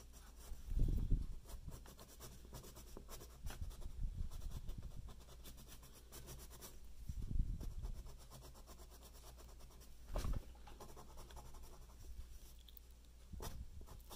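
Pen drawing on paper: scratchy doodling strokes in several separate bursts, the loudest about a second in and around seven seconds in.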